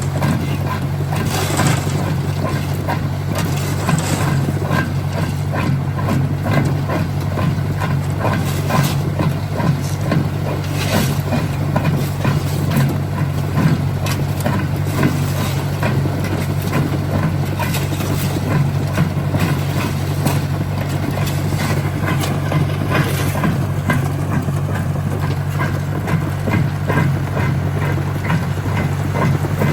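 Jaw crusher plant running and crushing stone. A steady engine drone carries under it, with frequent irregular knocks and clatter of rock being broken.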